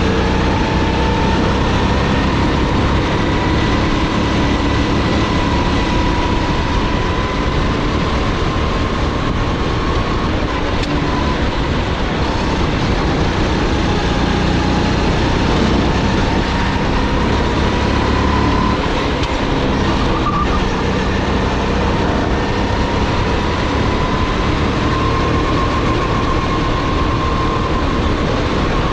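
SODI GT5R rental kart's 270 cc, 9 hp single-cylinder four-stroke engine running under load, heard from on board over a steady rush of noise. Its note climbs slowly along the straights and dips briefly twice, about 11 seconds in and again about 19 seconds in, as the kart slows for corners.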